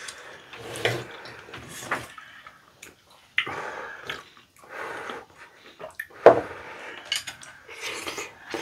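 Close-up eating sounds: wet slurps and chewing of saucy tteokbokki rice cakes, in a string of short bursts, with a few sharp clicks of chopsticks against the dishes.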